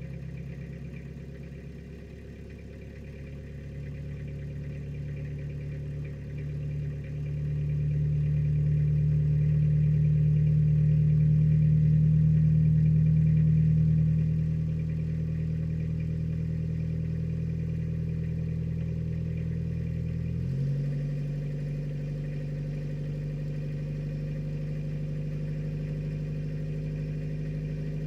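Toyota Hilux LN110's four-cylinder diesel engine idling while still cold after a −22 °C cold start. It swells louder for several seconds before settling back, and its note changes abruptly about twenty seconds in.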